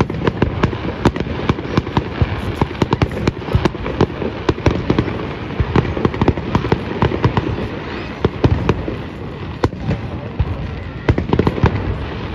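Fireworks display: a rapid run of aerial shell bursts, sharp bangs and crackles coming several times a second over a continuous low rumble.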